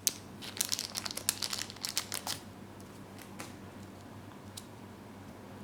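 Plastic wrapping being handled and pulled apart, crinkling in a dense run of crackles for about the first two and a half seconds, then a few separate faint clicks.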